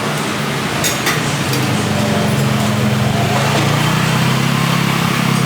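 Street traffic with a motor vehicle's engine running close by, its steady low hum coming in about a second and a half in.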